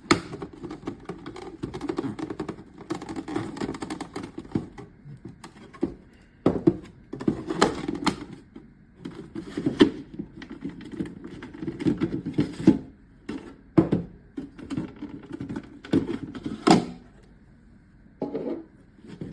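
Plastic parts of an air purifier being handled during disassembly as the fan shroud is taken off: irregular rustling and scraping with many sharp clicks and knocks, the last and loudest about three-quarters of the way through.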